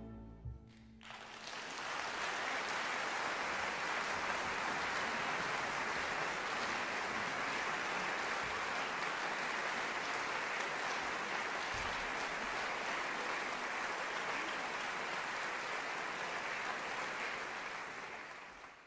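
The orchestra's final chord dies away, and about a second in a concert audience breaks into steady, dense applause that tapers slightly near the end.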